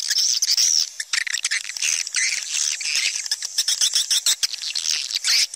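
Swiftlet calling sound: a dense, continuous chorus of rapid high chirps, twitters and clicks from many swiftlets. It is the kind of call recording played from a swiftlet house to lure the birds in to roost and nest.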